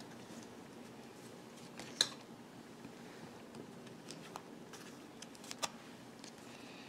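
Faint handling of a deck of oracle cards as the piles are picked up off a cloth-covered table, with one sharp tap about two seconds in and a few lighter clicks later.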